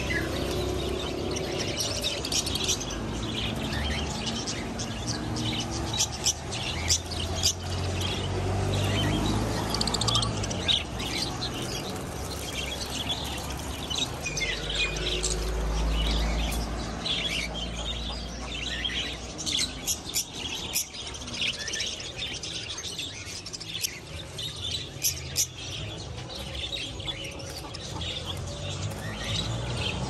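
A crowd of caged budgerigars chirping, many short chirps overlapping throughout, over a low rumble that swells about halfway through.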